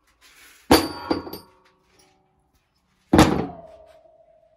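Rusty steel chain set down on a plywood board, a loud clank followed by a few quick link clinks. About three seconds in comes a second heavy metal clunk on the board, the axe head going down, leaving a ringing tone that fades away.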